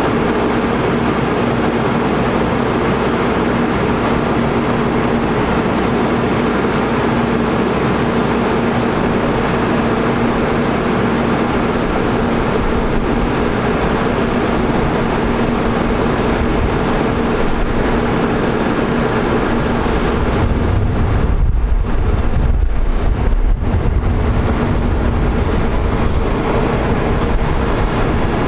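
Utility truck engine running steadily to drive the hydraulics of a Terex Telelect Commander 6000 digger derrick as its boom moves, with a constant hum. A deeper rumble joins about twenty seconds in.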